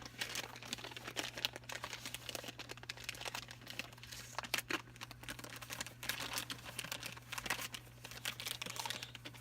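Book packaging crinkling and rustling as it is handled and unwrapped, a dense run of small irregular crackles.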